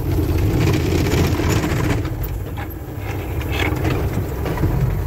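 Diesel engine of a Mack truck running steadily, easing off briefly about two seconds in before picking up again.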